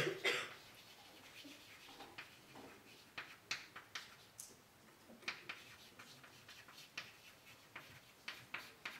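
Chalk writing on a blackboard: faint, irregular taps and short scratching strokes as the chalk is drawn across the board.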